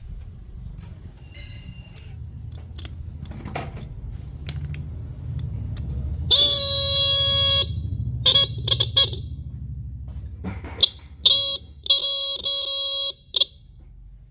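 Bike horn being sounded to test it after repair. It gives one long beep of over a second, three quick toots, then a few more short toots and another long beep near the end, over a low rumble with scattered clicks earlier.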